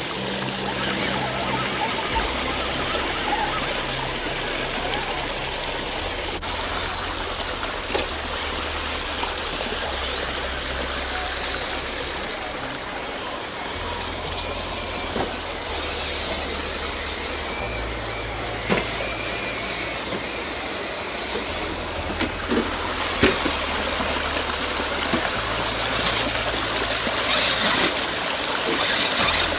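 Creek water running over rock ledges, with the steady high whine of a radio-controlled crawler truck's electric motor and gears from about six seconds in until about two-thirds of the way through, and scattered clicks of the truck on the rocks.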